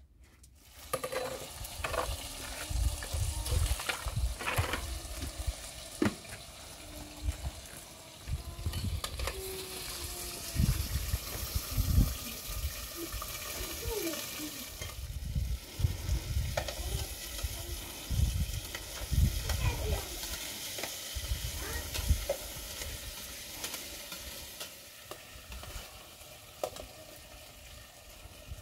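Food frying and sizzling in a small pan over an open wood fire, stirred with a metal ladle, with scattered clicks and low knocks.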